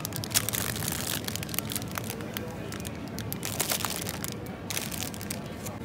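Crinkly plastic wrappers of packaged cream puffs crackling and rustling as they are handled and put into a plastic shopping basket, over a low steady background hum.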